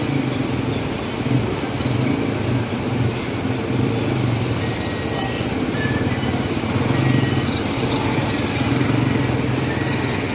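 Motorcycle-sidecar tricycles driving past with their engines running, over steady street traffic noise; the sound swells about seven seconds in as one passes close by.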